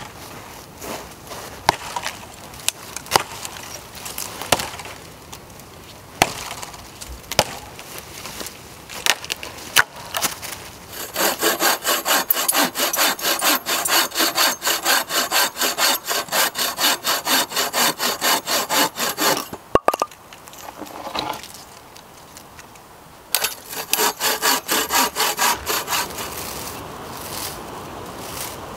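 Bow saw cutting firewood in fast, even strokes, about three a second, in two runs with a sharp crack of wood between them. Scattered sharp knocks and snaps come before the sawing starts.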